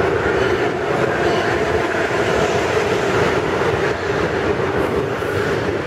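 Amtrak Acela Express high-speed trainset running in alongside the platform, its wheels on the rails making a steady, loud rumble as the cars pass close by.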